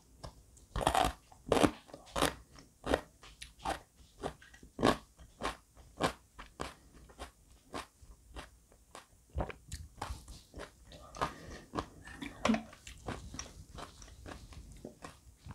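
Crisp crunchy chewing of fermented red cabbage sauerkraut, a steady run of sharp crunches about two or three a second, louder in the first half and softer toward the end.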